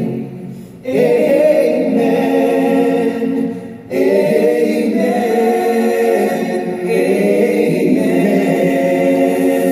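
All-male a cappella vocal group singing sustained chords, heard from the audience seats. The voices fade and come back in with a new chord about a second in, and again about four seconds in.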